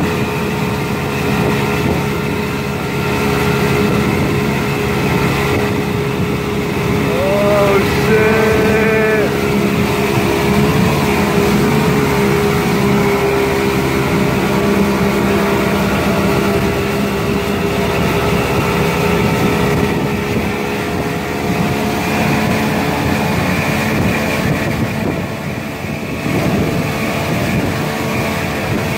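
Boat's outboard motor running steadily at speed while towing an inflatable tube, with wind and rushing water from the wake.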